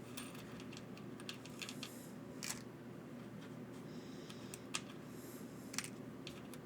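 Small screws and parts clicking and clinking as they are handled and sorted by hand, a scatter of light irregular clicks over a faint steady hum.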